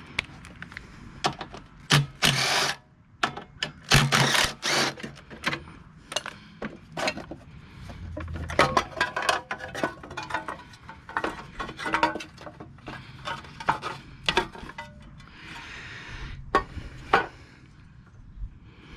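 Hand tools and metal parts of a small snowblower engine being handled during disassembly: irregular clicks, knocks and scraping, with a few sharper knocks around two and four seconds in.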